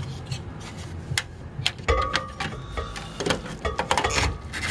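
A SCSI hard drive in its carrier being worked back into the drive bay of a Dell PowerEdge 2300 server: a run of sharp clicks and knocks of the carrier against the metal bay, with scraping and short squeals as it slides on its rails in the second half.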